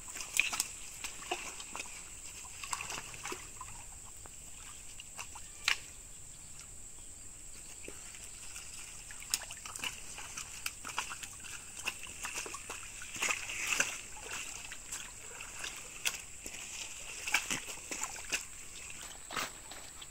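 Creek water splashing and sloshing in irregular short bursts as a man wading waist-deep gropes with his hands under the bank for fish, against a steady thin high-pitched tone.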